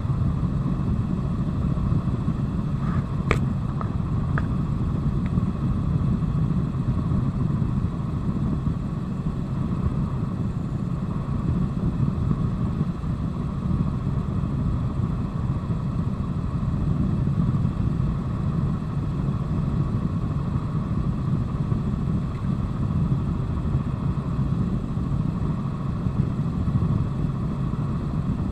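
Steady helicopter engine and rotor noise heard inside the cabin, a constant low rumble, with a single sharp click about three seconds in.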